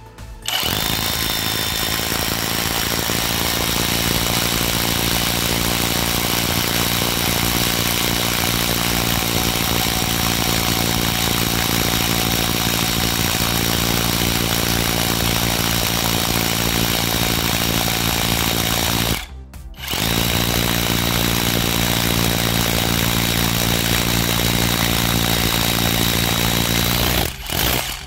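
Cordless rotary hammer drill in hammer-drill mode boring a 14 mm masonry bit into concrete, running steadily and loudly. It stops for under a second about two-thirds of the way through, starts again, and stops shortly before the end.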